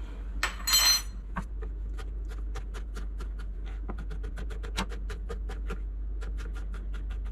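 Chef's knife chopping pickled jalapeño slices on a plastic cutting board: a steady run of quick blade taps, about five a second. A brief scrape comes just before the chopping starts.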